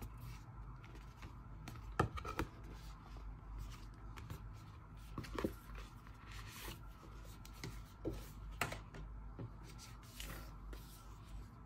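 Hands handling packaging and small gadgets during an unboxing: scattered clicks, taps and rubbing, with the sharpest click about two seconds in, over a low room hum.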